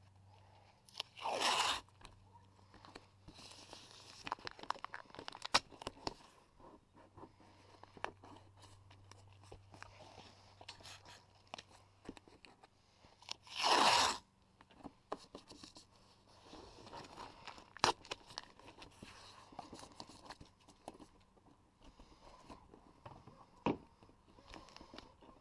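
Painter's tape being pulled off the roll in two short tearing rips, about a second in and again about 14 seconds in, with small crinkling and clicking as the tape is handled and pressed down.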